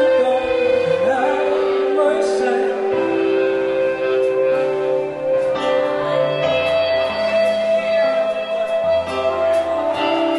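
Rock band playing live, with electric guitars, bass, keyboard and drums, and a singer's voice over sustained guitar notes.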